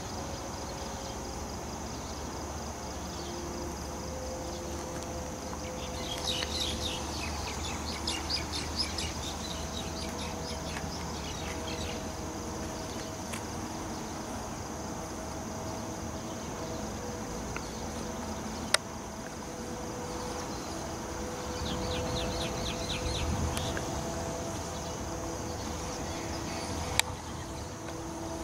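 Steady high-pitched trilling of insects outdoors at night, with two spells of fast repeated chirping, one about six seconds in and one past the middle. Two sharp clicks come late on.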